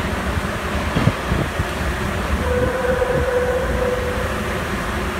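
Sapporo subway Toho Line rubber-tyred train running through its tunnel, heard from inside the car: a steady rumble with a few knocks about a second in. A faint steady whine rises over it for a second or so midway.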